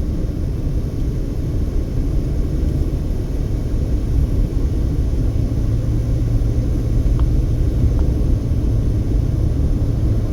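Steady low road rumble of a car being driven, tyre and engine noise heard from inside the cabin, with a couple of faint short ticks near the end.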